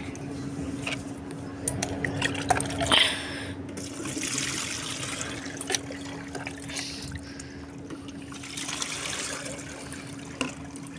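Homemade liquid fertilizer of soaked vegetable peels is poured through a plastic mesh strainer. The water splashes and trickles through as the scraps catch in the basket, with a few light plastic knocks in the first seconds.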